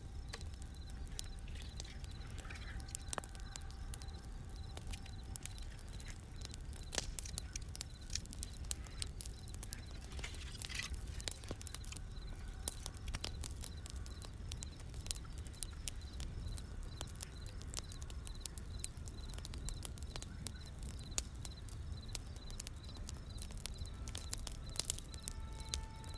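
Burning wood fire crackling, with irregular sharp pops and snaps over a steady low rumble.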